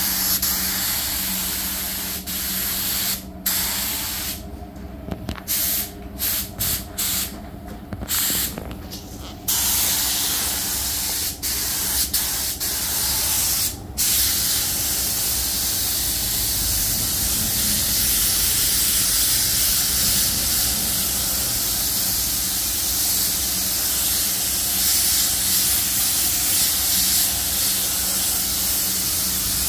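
Air spray gun hissing as it lays chrome paint onto a metal header panel. The trigger is let off and pulled again several times in short bursts during the first half, then held in one long steady pass. A steady hum runs underneath.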